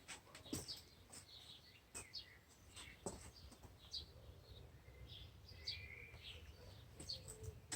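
Faint birds chirping in short, scattered calls, with a few sharp clicks and a steady low background rumble.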